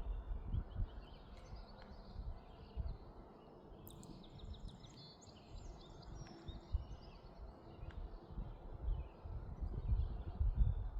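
Songbirds chirping and trilling, many short calls overlapping, over an uneven low rumbling noise that swells near the start and again near the end.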